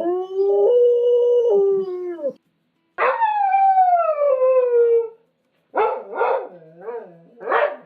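A dog howling: a long held howl that steps up in pitch and back down, then a second howl that starts high and falls steadily, then a run of short, broken howls near the end.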